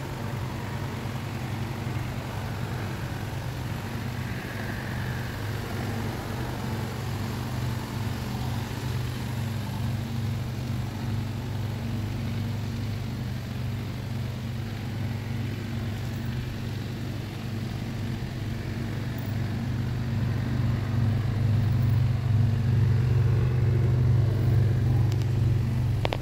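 A 2002 Chevrolet Avalanche's V8 idling: a steady low hum that grows louder near the end.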